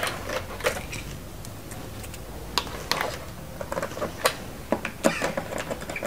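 Irregular small clicks and plastic knocks of hands handling a control wire at a DIN-rail circuit breaker terminal and the slotted cable duct, a few sharper clicks spread through.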